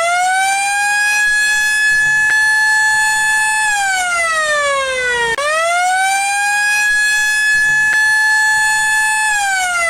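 Warning siren wailing in a repeating cycle: the tone sweeps up quickly, holds steady for about three seconds, then slides down. The cycle restarts about five and a half seconds in, so it runs twice.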